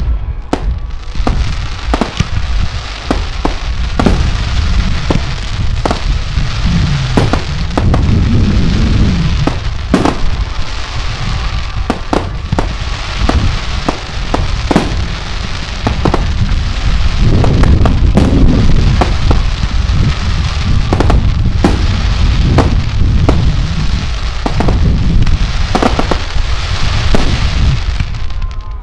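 Aerial fireworks display with shells bursting in quick succession: dozens of sharp bangs, often less than a second apart, over a continuous low rumble and hiss.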